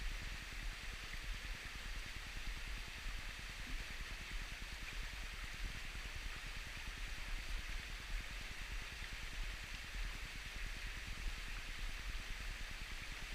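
Mountain stream water rushing steadily over rocks, an even hiss, with a low rumble underneath.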